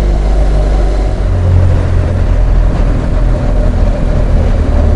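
BMW R1200GS boxer-twin engine running at a steady cruise while riding, with wind rushing past; the engine note shifts slightly about a second in.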